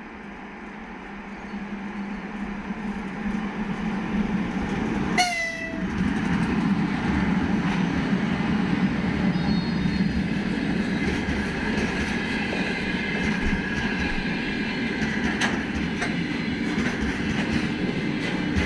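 A 2ES6 Sinara electric locomotive with a freight train approaches, growing steadily louder, and gives one short horn toot about five seconds in as it passes. Freight wagons then roll past with a steady rumble and clatter of wheels over the rail joints.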